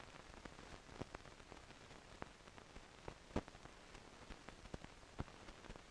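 Near silence: faint steady hiss with scattered crackles and clicks, one sharper click about halfway through. This is background noise of a silent archive film transfer with no recorded soundtrack.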